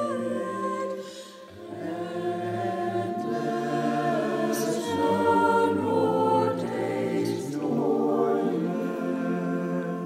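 Church choir singing held chords in several parts, with a brief drop between phrases about a second and a half in.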